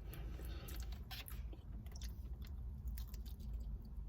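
A person chewing food close to the microphone in a mukbang, with small wet clicks of the mouth. A low steady rumble runs underneath.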